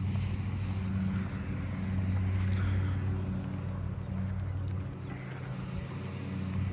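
Lawnmower engine running steadily as a low, even hum that eases off a little near the end.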